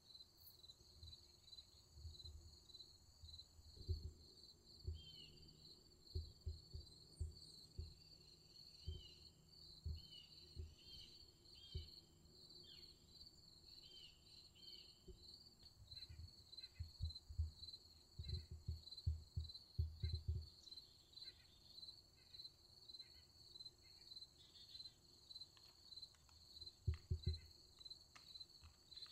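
Crickets chirping in a steady, evenly pulsed chorus, with scattered soft low thumps.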